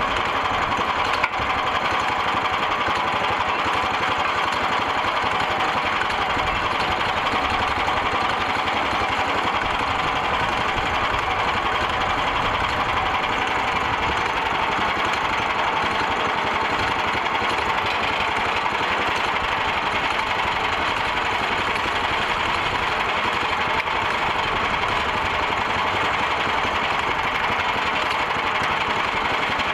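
Small engine of a portable band sawmill running steadily at speed while the band blade cuts a log. There is one sharp click about a second in.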